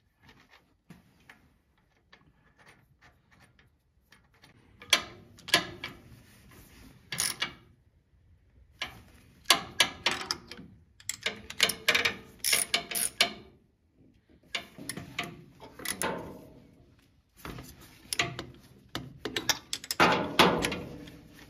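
Socket ratchet clicking in short rapid runs, with pauses between, as spark plugs are turned back into the cylinder head of a Willys CJ-2A's flathead four-cylinder engine.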